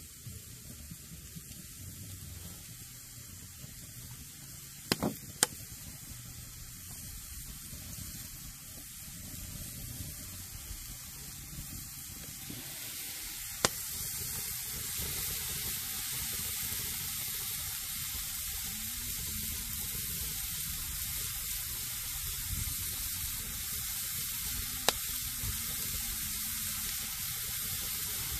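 Burgers sizzling in a hot frying pan over an open fire, the frying growing louder about halfway through. A few sharp pops stand out, around five seconds in, near the middle and near the end.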